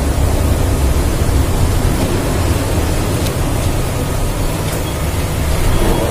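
Steady low rumbling noise, with a couple of faint clicks as a screwdriver works the screws on a photocopier's gear cover plate.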